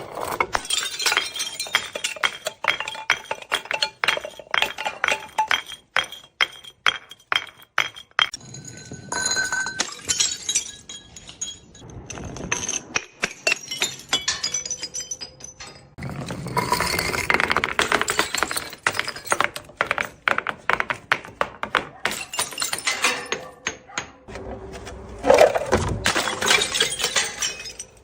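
Glass bottles smashing and breaking, with many clinks and tinkles of glass pieces, coming in several dense bursts of crashing separated by sparser clinks.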